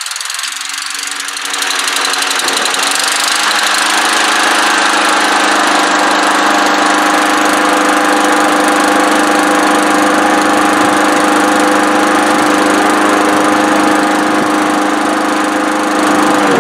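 Honda GV160 lawn mower engine picking up speed over the first few seconds, then running at a steady speed.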